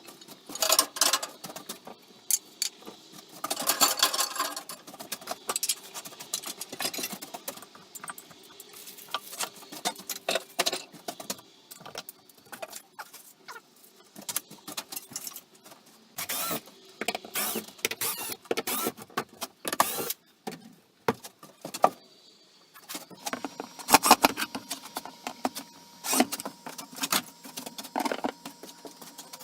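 Irregular clattering, knocking and rattling of hard objects being handled, with the loudest clusters about a second in, around four seconds in, and again in the second half.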